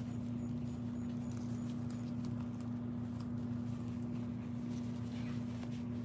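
A steady low hum runs throughout, under faint scattered clicks and rustles as a hand strokes a rabbit's fur in the grass.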